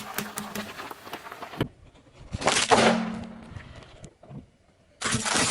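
Things crackling and crunching as they are crushed under a car tyre. Then, after an abrupt cut, a loud burst that fades into a hiss, and another sudden burst near the end.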